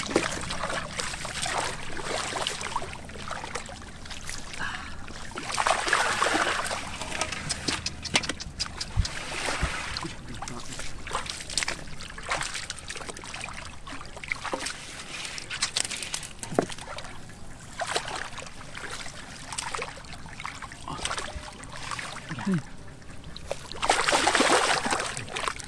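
Shallow swamp water sloshing and splashing irregularly, with heavier bursts of splashing about six seconds in and again near the end.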